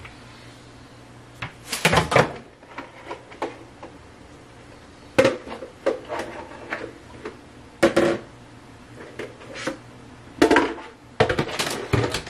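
Kitchen clatter: bursts of short knocks and rattles as kitchen items are handled, coming in about six separate bouts over a low steady hum.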